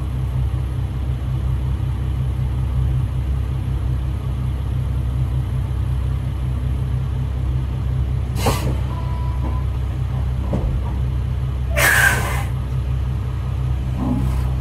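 Semi truck's diesel engine running with a steady low rumble, with two short hisses of air about eight and twelve seconds in, the second louder.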